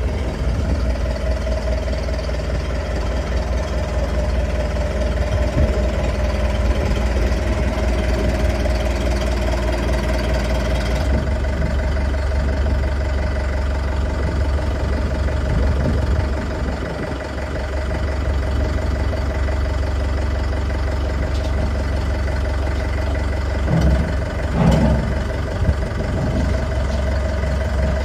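Engine of a tracked pile-driving machine running steadily, with a brief louder surge about 25 seconds in.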